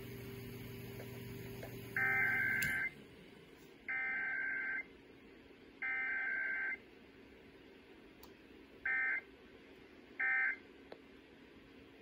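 Emergency Alert System digital header tones (SAME data bursts) on a radio broadcast: three buzzy bursts of about a second each, roughly a second apart, then two shorter bursts. A steady low hum cuts off during the first burst.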